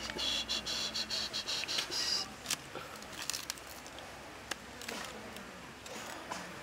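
An insect buzzes with a rapid, pulsing high trill for about two seconds at the start, then stops; scattered light clicks and taps follow.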